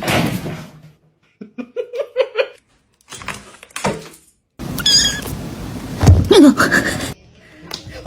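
A cat vocalising in several short, separate bursts, with abrupt cuts to silence between them.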